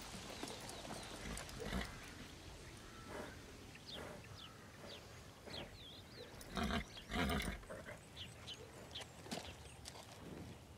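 A horse close by, with two louder noises from it about seven seconds in, over a quiet outdoor background with a few short high chirps.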